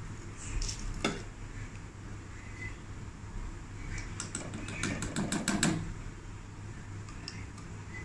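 A metal spoon clinking and scraping against the dish while scooping thick homemade condensed milk into the pan. There are a couple of clicks about a second in and a quick run of about a dozen light taps around the middle, over a low steady hum.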